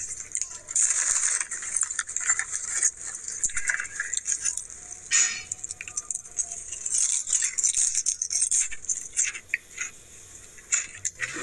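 Lay's potato chips crunching as they are bitten and chewed, with the crinkle of the chip bag, a dense run of crisp crackles and clicks.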